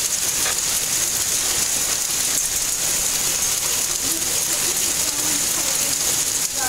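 Hail and rain falling steadily, small ice pellets hitting a wet driveway and lawn in a dense, even patter.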